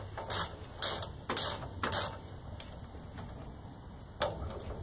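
Hand ratchet clicking as it winds out the caging bolt of a truck's spring brake chamber, caging the spring to release the parking brake. Four quick strokes about half a second apart, then a pause and one more stroke near the end.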